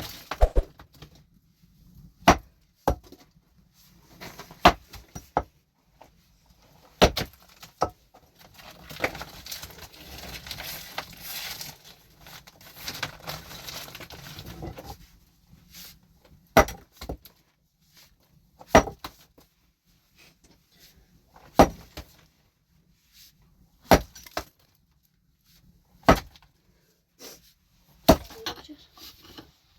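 A steel hand tool striking rock about ten times, one hard blow every two seconds or so, as rock is broken up. A few seconds of steady scraping noise come between the blows near the middle.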